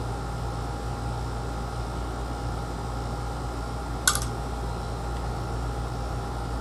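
Steady background machine hum, with one sharp click about four seconds in as the dauber lid is set back onto a metal can of PVC primer.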